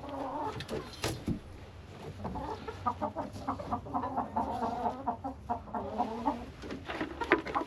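Several hens clucking in a chicken coop, many short overlapping calls, with a few sharp clicks mixed in.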